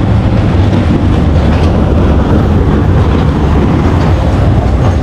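The zoo park's small passenger train running past, a loud, steady rumble with a low engine hum.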